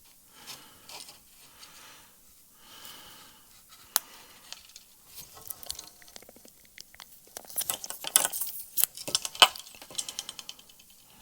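Close-up handling noises as pole elastic is tied into a loop knot: soft rustles and scattered small clicks, becoming a busier run of sharp clicks and scrapes from about seven and a half to ten seconds in.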